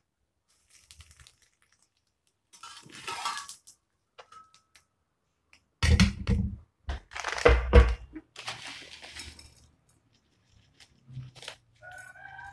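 Metal cooking utensils (a spatula and a knife) knocking and clinking against a small steel frying pan and a steel bowl, in scattered bursts. The loudest dull knocks come about halfway through.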